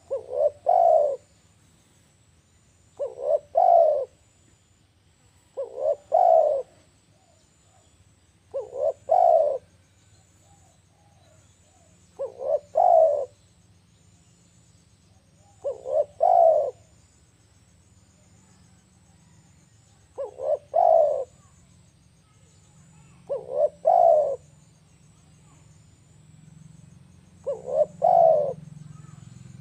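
Spotted dove cooing: a phrase of two short notes and a longer coo, repeated about every three seconds, nine times.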